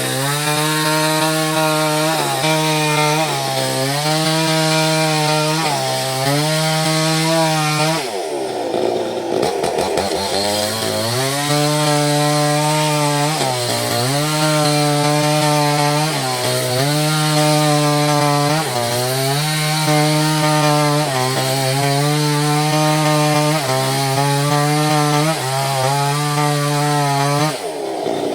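Small chainsaw cutting through mahogany, running at high speed, its pitch sagging briefly every second or two as the chain bites into the wood. About eight seconds in it falls back toward idle for a couple of seconds, then revs up again. It drops off once more near the end.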